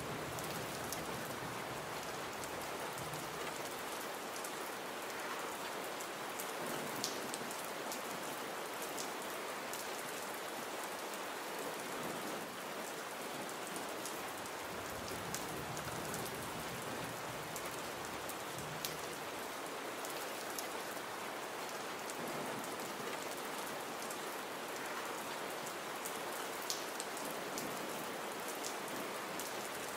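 Gentle, steady rain with no thunder: an even hiss of rainfall, with now and then a sharper single drop ticking.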